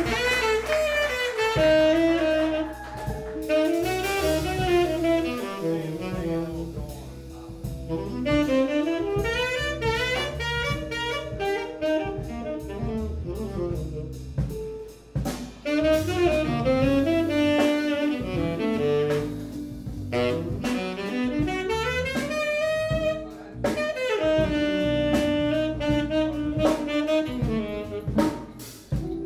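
Live jazz: a tenor saxophone plays a winding melodic line over a rhythm section with bass and drum kit.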